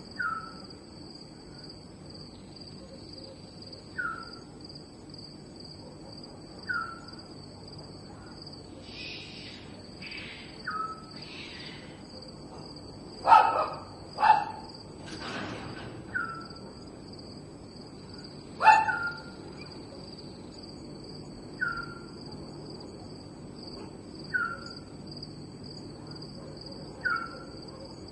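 Night ambience. A steady, high crickets' trill runs throughout, and a short falling call repeats about every two and a half to three seconds. A few louder, sharper animal calls come just past the middle of the clip.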